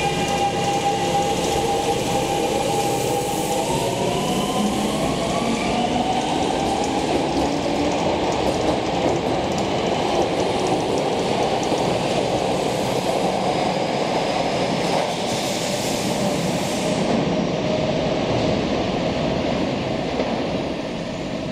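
Subway electric train running, with the rumble of wheels on rail under the whine of its traction motors. The whine holds several steady tones, then starts rising in pitch about four seconds in as the train picks up speed.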